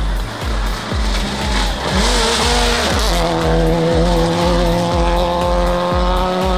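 Rally car engine running hard as the car approaches and passes on a dirt stage, mixed with music that has a steady bass beat about twice a second. There is a rush of noise about two seconds in.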